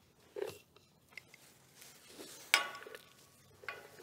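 Metal catwalk clanking as someone moves across it: three knocks. The loudest, about two and a half seconds in, rings briefly.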